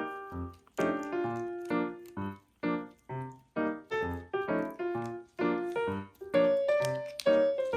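Background piano music: a bright melody of separate notes, a few to the second, each struck and then fading.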